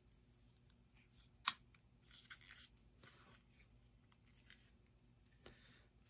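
Plastic model-kit parts being snapped together by hand: one sharp click about one and a half seconds in, then faint handling rustles and a lighter click near the end. The click is the two halves of the USS Grissom snap kit's lower hull snapping into place.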